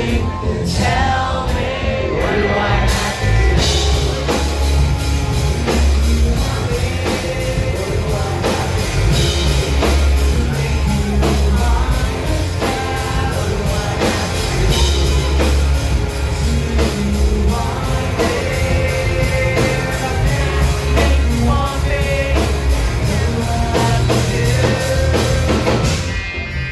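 Rock band playing with a singer, over a heavy bass and a steady drum beat.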